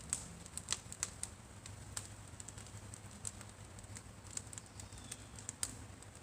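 Brush burn pile of wood crackling: irregular sharp pops and snaps, scattered through, over a faint steady background hum.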